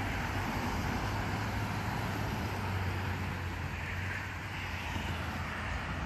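Cars passing on a road: a steady rush of tyre and engine noise, with a low hum that is strongest in the first half.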